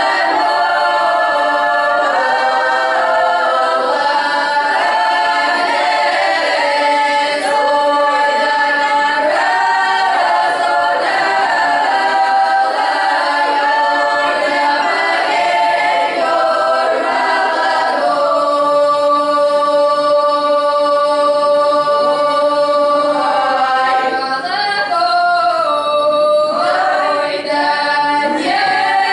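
Russian children's folk ensemble singing a traditional folk song a cappella, several voices together in harmony. About two-thirds of the way through they hold a long chord, then slide between notes near the end.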